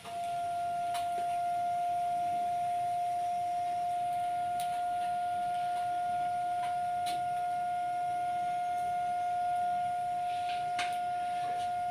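A steady high-pitched tone, one unwavering note, with a few faint clicks over it.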